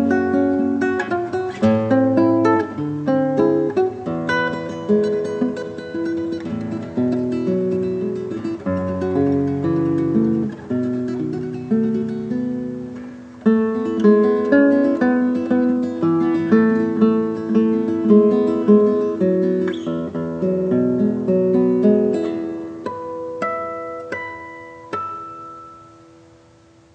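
Acoustic guitar playing an instrumental piece in notes and chords, ending on a final chord that rings and fades out near the end.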